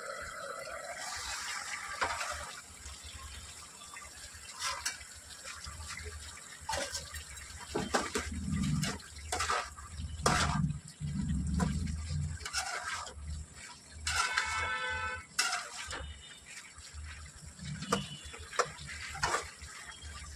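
Flat metal spatula stirring a thick, simmering potato-and-carrot curry in an iron kadhai: wet sloshing and squelching of the gravy, with scattered clinks and scrapes of the spatula against the pan.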